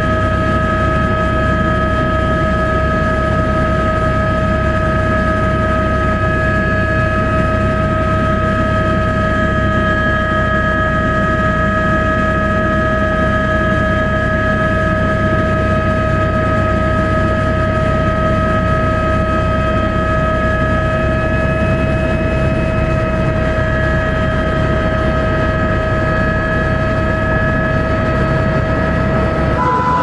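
Helicopter cabin noise in flight: a steady, loud low rumble from the rotor and engine with a constant high whine over it. The whine shifts abruptly right at the end.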